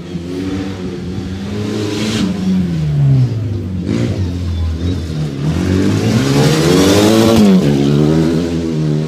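Rally car engine revving hard through a bend: the pitch falls as it slows into the corner, then climbs steadily as it accelerates out, dropping sharply at a gear change about seven and a half seconds in.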